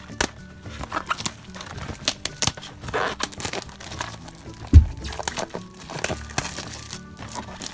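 Plastic wrapping on a box of hockey trading card packs being torn open and crinkled, with quick crackling clicks throughout and one loud thud a little past the middle.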